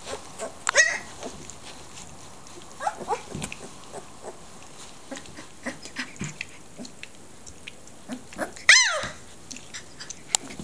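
Fifteen-day-old Leonberger puppies squealing and whining: a few short high-pitched calls, the loudest a yelp about nine seconds in, with small clicks and rustles of movement between.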